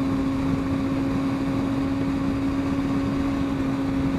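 Motorcycle engine running at steady cruising revs, an even hum that holds one pitch, with wind and road rush underneath.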